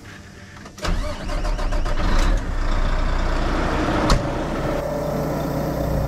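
A vehicle engine starts up about a second in and comes up to a steady running rumble, with one sharp knock about four seconds in.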